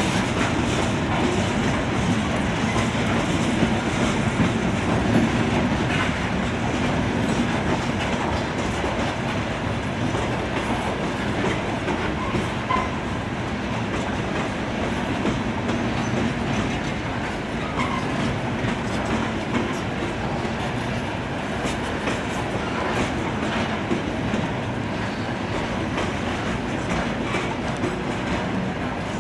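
A coal train's aluminum coal hoppers rolling steadily past, wheels clattering over the rail joints with a continuous rumble.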